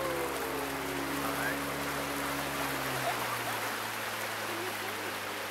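A boat under way on open water: a steady rush of water and wind noise, with a low steady hum underneath that drops lower and fainter about three seconds in.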